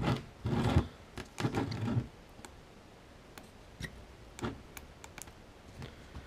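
Handling of the opened battery pack and its cells on a bench: a sharp knock at the start, two short scraping rustles, then a run of light clicks and ticks.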